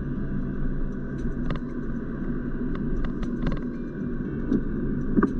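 Car interior while driving on a wet road: steady engine and tyre rumble, with a few sharp ticks scattered through, the loudest near the end.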